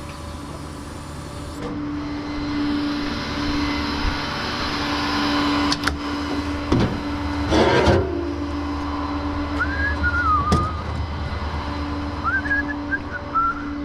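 A vehicle engine running at a steady idle. Several sharp metallic knocks and clanks come about two-thirds of the way in, and short high squeaks follow near the end.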